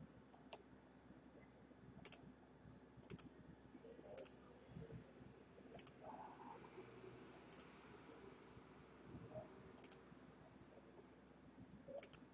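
Faint computer mouse clicks, about seven single clicks spaced one to two seconds apart, over quiet room noise.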